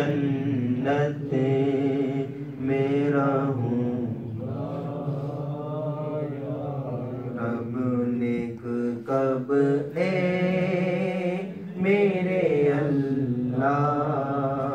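A man's voice chanting a devotional supplication in long, drawn-out phrases, the pitch wavering and bending on each held note, with short breaks for breath between phrases.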